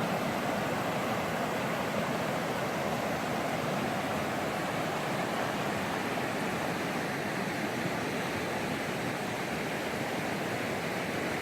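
Fast-flowing river rushing: a steady, even rush of water.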